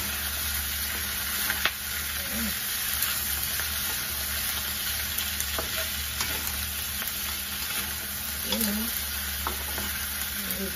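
Chicken feet sizzling as they are stir-fried in oil in a metal wok, with a wooden spatula scraping through them and knocking sharply against the pan a few times.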